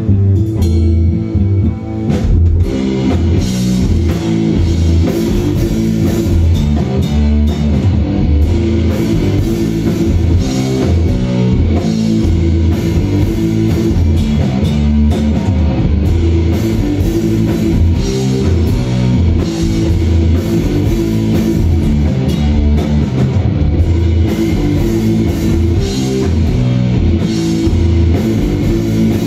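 Live rock band playing loud: distorted electric guitar, bass guitar and drum kit. Guitar and bass hold notes at first, and the drums come in about two seconds in with a driving beat.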